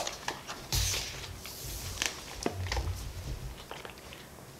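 Chewing, with clicks and rustles from a clear plastic food container being handled and passed over. A fork scoops grapes and shredded cheese from it. The rustling is loudest about one to two seconds in.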